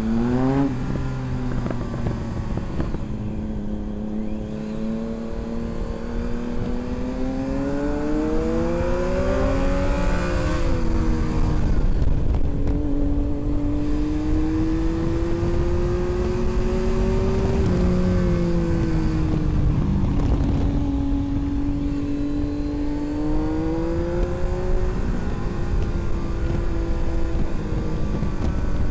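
Motorcycle engine running under way, its pitch climbing slowly as it speeds up and dropping back several times, with a steady rush of wind over the microphone.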